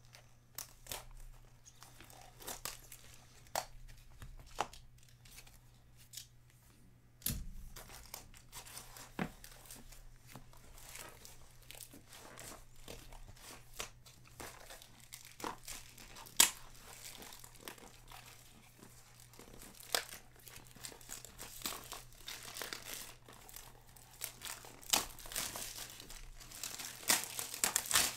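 A box of 2020 Big League Baseball trading cards being opened by hand: packaging tearing and crinkling, with scattered sharp clicks and a soft thump about seven seconds in, busier toward the end.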